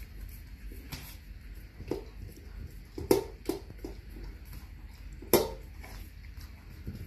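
Labradoodle eating from a stainless steel bowl set in a red holder. Its muzzle knocks the metal bowl, giving about four sharp clinks; the loudest comes about five seconds in.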